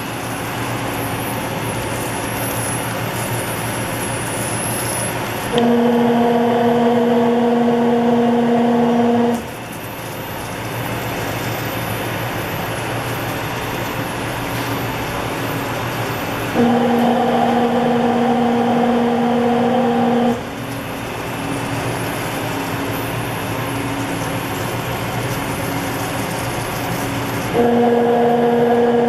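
Toyota Tercel running with a steady mechanical noise throughout, with no abnormal noise to be found in the test. Three times a steady, pitched hum comes in and holds for about four seconds before dropping out, the last one starting near the end.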